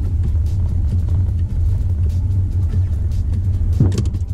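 Steady low rumble of tyres and wind heard from inside the cabin of a Ford Mustang Mach-E driving on the test track. Near the end comes a thump as the car strikes the soft cyclist dummy, which lands against the bonnet and windscreen.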